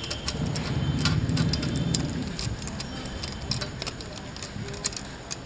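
Irregular light clicks and clinks of small suspension parts being handled, over a low workshop rumble that fades after about two seconds.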